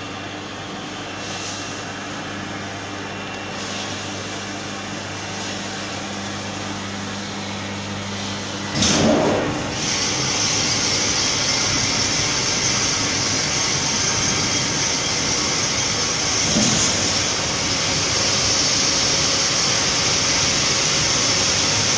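Batch-type seed treater (seed coating machine) running: a steady low hum, then a sudden loud burst about nine seconds in, after which a louder steady hissing rush holds while the batch of seed is treated.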